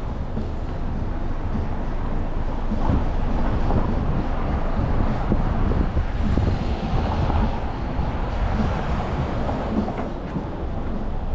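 City street ambience: a steady low rumble of traffic that swells for a few seconds in the middle.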